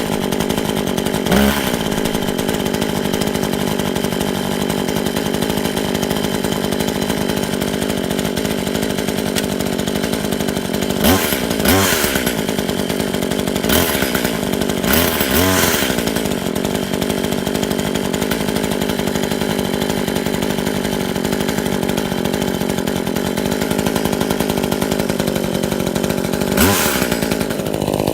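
A new Tanaka 14-inch top-handle two-stroke chainsaw, newly started for the first time, idling steadily. It is given several short bursts of throttle: briefly near the start, a cluster between about 11 and 16 seconds, and once more near the end.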